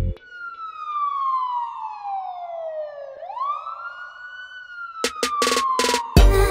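A siren wailing: its pitch falls slowly for about three seconds, swoops quickly back up, then sinks slowly again. Music with a beat cuts back in about five seconds in.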